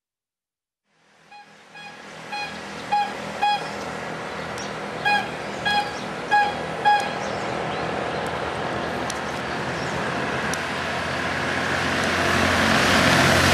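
Vehicle horn tooting in a series of short beeps, mostly in quick pairs, over steady road noise from moving traffic. The road noise grows louder near the end.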